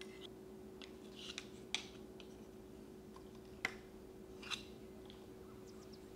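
Light clicks and taps on glass tumblers as a plastic straw and a wooden spoon are set into drinks, with two sharper clinks, one about a second and a half in and one just before four seconds, over a faint steady hum.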